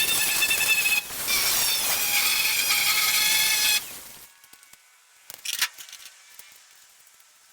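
Power tool cutting through the steel shell of an old water heater tank: a loud, steady cutting noise with a high whine, briefly dipping about a second in and stopping about four seconds in, followed by a few light metallic clinks.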